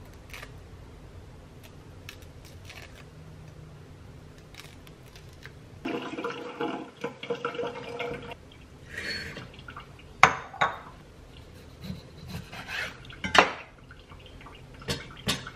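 Kitchen food-prep clatter: a stretch of scraping and rattling of utensils against dishes, then several sharp knocks, such as a knife on a wooden cutting board while an avocado and a lemon are cut.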